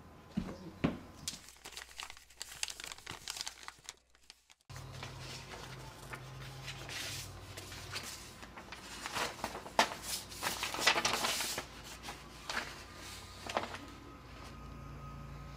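Paper mail, envelopes and a printed flyer, rustling and crinkling as it is picked up and leafed through by hand, busiest in the last third. A few light knocks in the first four seconds, and a low steady hum of room tone from about five seconds in.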